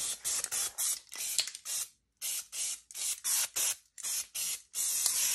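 Aerosol can of white acrylic chalk spray paint hissing in short quick spurts, about three a second, as the paint is dabbed on lightly in places. Near the end the spurts give way to one long continuous spray.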